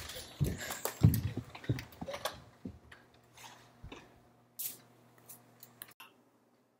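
Footsteps thudding on the floor as people run and walk off, several dull thumps close together in the first two seconds, then a few scattered knocks and clicks. A faint steady low hum runs underneath and stops about six seconds in.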